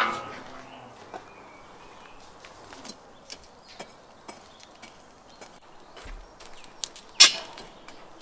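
Metal clanking: the clang of a steel lid set onto a round metal pan rings away at the start, light taps and steps follow, and about seven seconds in a sharp metallic clank sounds as metal skewers are laid on the barbecue grill.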